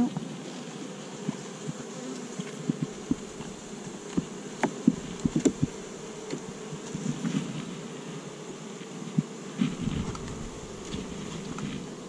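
Honeybees buzzing steadily around an opened hive, with scattered light knocks.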